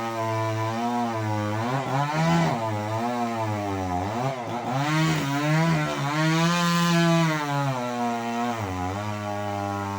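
Stihl MS 381 two-stroke chainsaw running, its engine speed rising and falling several times as it is throttled and loaded, working on durian wood.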